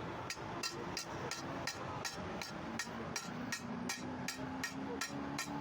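Hand hammer striking a steel chaff cutter blade on an anvil in a steady rhythm, about three sharp blows a second.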